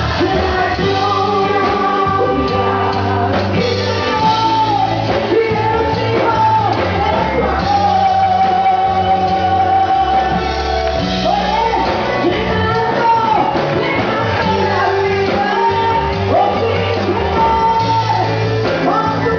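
Live Spanish-language worship song: singing over a church band with bass and drums, in a large hall.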